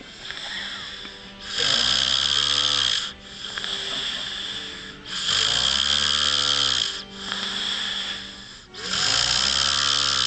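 A sleeping man snoring: three loud snores, one every three to four seconds, each lasting about a second and a half to two seconds, with quieter breathing between them.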